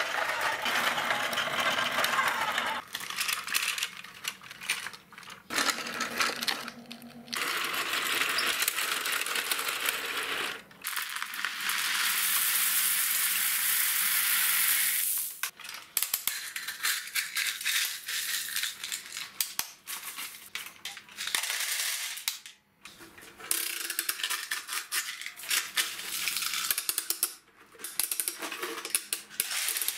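Small gravel stones pouring and rattling onto a concrete floor and into the plastic bed of a toy dump truck, with sharp clicks of stones and toy excavator buckets. The pour is heaviest and most continuous from about 12 to 15 seconds in.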